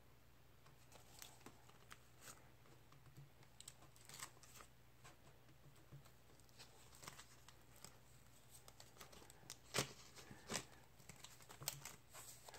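Faint rustling and light clicks of paper bills and plastic envelope pockets being handled in a ring budget binder, with two sharper clicks about ten seconds in.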